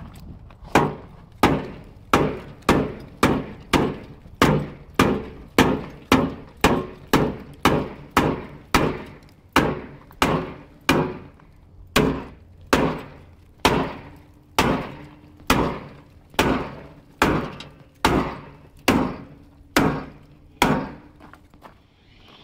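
Hand hammer beating on the truck's crumpled sheet-metal front fender to straighten it: a long, steady run of sharp metallic blows, each ringing briefly, about one and a half a second at first and slowing to about one a second.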